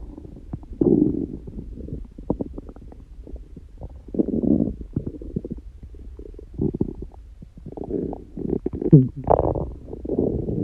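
A person's stomach growling: an irregular run of gurgles and rumbles, loudest about a second in, around four seconds in, and near the end, where a squeaky gurgle slides down in pitch. The owner says the growling comes from a stomach that rumbles a great deal by nature, not from hunger or a stomachache.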